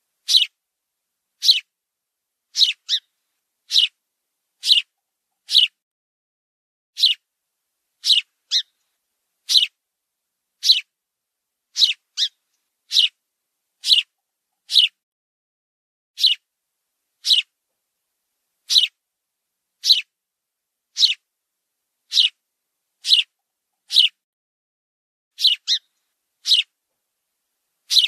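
A bird calling: short, high chirps repeated about once a second, some of them in quick pairs.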